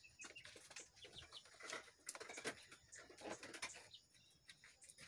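Faint rustling and light knocks of potted plants and soil being handled, with a few faint bird chirps.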